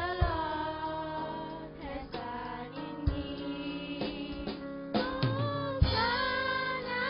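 A group of girls singing a gospel song together into microphones, over instrumental accompaniment with steady low tones. A low thump falls about every three seconds.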